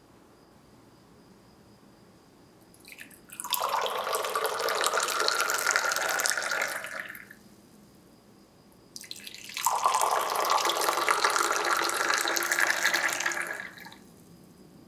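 Tea poured from a silver teapot into a glass, twice: two steady pours of about four seconds each, the first starting about three seconds in and the second about nine seconds in.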